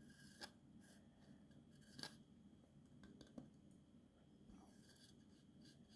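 Near silence, broken by a few faint clicks and scrapes of a spoon on a plate as crushed sesame seeds are scraped onto sliced mushrooms.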